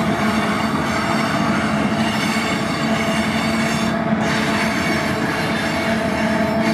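A long Union Pacific freight train rolls past on a downgrade, its mid-train distributed-power diesel locomotives helping hold the train back. Their steady hum sits over the rolling noise of steel wheels on rail, with a thin high ringing above.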